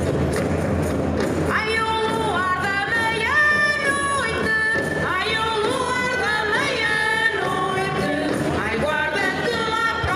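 Traditional Portuguese folk singing by a singing group, with a woman's voice prominent, holding long notes and sliding between them. The singing comes in about a second and a half in.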